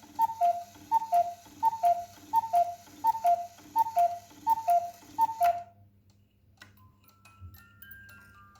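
Vintage Black Forest cuckoo clock's bellows cuckoo calling over and over, a falling two-note 'cu-ckoo' about every 0.7 seconds, about eight times. It stops about five and a half seconds in. The calls are set off when the part being repaired goes all the way back.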